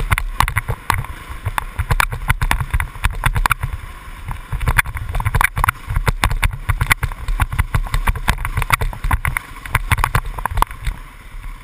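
Dirt bike riding a rough wooded trail, its engine a muffled low drone heard through a GoPro's waterproof housing. Frequent sharp knocks and rattles come from the bike and camera jolting over bumps.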